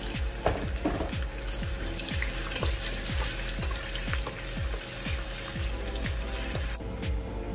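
Chopped onions sizzling in hot oil in a stainless steel pot while being stirred, over background music with a steady beat. The sizzle cuts off abruptly near the end while the music carries on.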